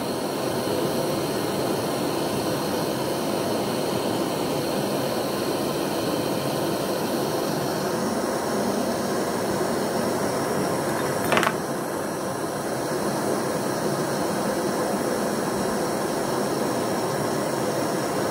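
Hand-held gas torch burning with a steady hiss, heating brass parts on a fire brick for soldering. A brief metallic click sounds about eleven seconds in.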